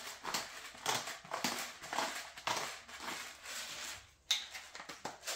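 Hand pepper grinder being twisted, cracking black peppercorns in a run of gritty crunching strokes, a few a second. The grinding stops about four seconds in, and a single sharp click follows.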